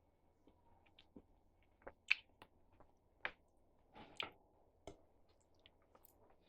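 Faint mouth sounds of someone chewing string beans: scattered wet clicks and smacks at irregular intervals.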